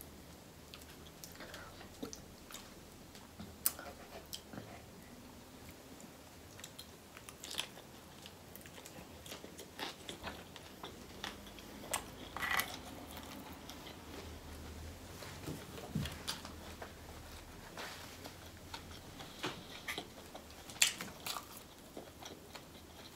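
Close-miked eating sounds of a person biting and chewing lobster tail meat: scattered wet mouth smacks and short clicks, a few of them louder.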